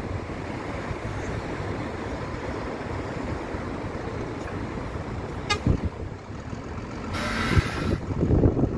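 Road traffic at a junction, with wind on the microphone, a brief click about five and a half seconds in, and a vehicle horn tooting for under a second near the end.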